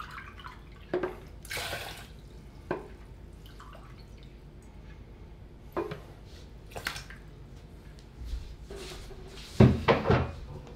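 Water being poured from a cup into a rice cooker's inner pot over rice, in short splashes and drips, with separate knocks of the cup and pot. A cluster of louder knocks comes near the end.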